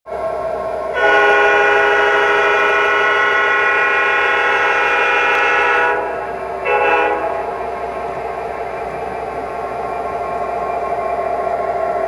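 Model Norfolk Southern SD60M diesel locomotive's onboard sound system blowing its horn: one long blast of about five seconds, then a short blast about a second later, over the model's steady engine and track rumble.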